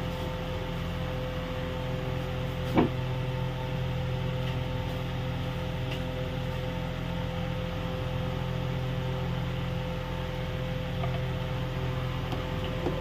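Steady hum of a running motor or appliance: a low drone with a fainter steady tone above it. One short knock comes about three seconds in.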